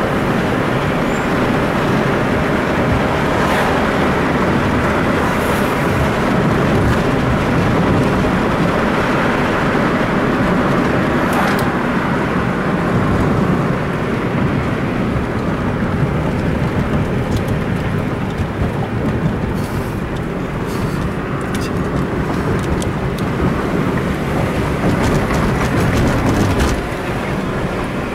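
Lamborghini Gallardo LP 570-4 Spyder Performante's V10 engine and exhaust running as the car drives in traffic, mixed with road noise; the sound drops off somewhat near the end.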